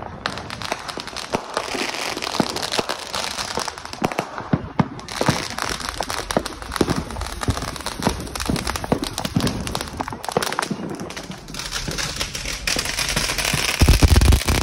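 Consumer fireworks going off at close range: a constant run of bangs and crackles over a hiss of spraying sparks. A heavy low thud near the end is the loudest moment.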